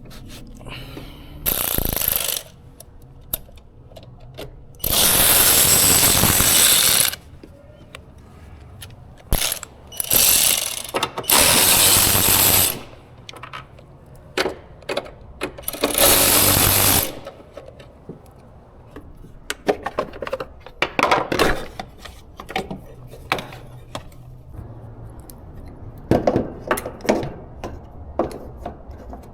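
Power wrench run in five bursts of one to two seconds, with ratchet clicks and metal tool knocks between, as fasteners are worked on the engine.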